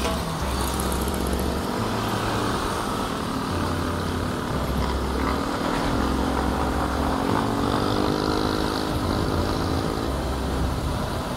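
Wind rumbling on the microphone of a bike-mounted camera while riding, with motorcycles going by; from about four seconds in, one motorcycle engine is heard passing, its note rising and then falling.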